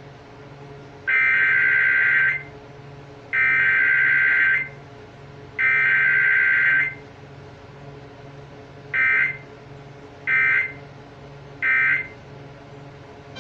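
Emergency Alert System Required Weekly Test: the SAME digital header's warbling data bursts sound three times, about a second each, followed by three short end-of-message bursts. No attention tone sounds between them.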